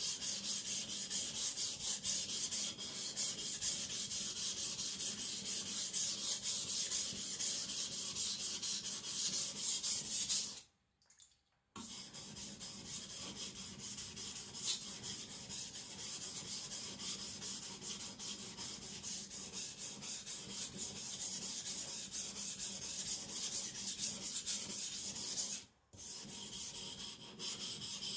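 A carbon-steel (aogami) gyuto blade being ground flat on a coarse 400-grit water stone: rhythmic back-and-forth scraping strokes as the blade's side is thinned. The strokes break off for about a second twice.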